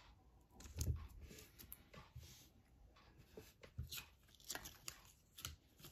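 Faint rustles and a handful of light taps from trading cards and plastic card sleeves being handled and set down on a table.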